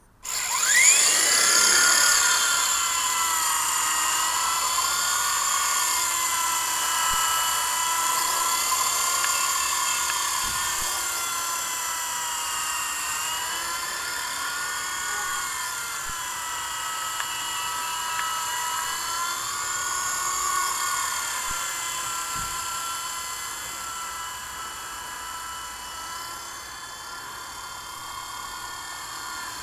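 WLtoys V912 RC helicopter's electric motor starting up abruptly with a rising whine as it spools up, then a steady high-pitched whine from motor, gears and rotor that rises and falls in pitch as it flies. It grows somewhat fainter in the second half.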